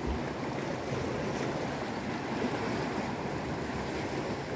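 Sea surf washing against shoreline rocks, a steady rushing noise, with wind on the microphone and a brief low thump just at the start.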